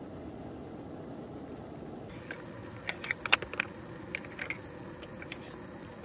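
Small canister gas stove burning steadily under a kettle for about two seconds, then a sudden change to a cluster of light clicks and taps as small coffee gear is handled by hand.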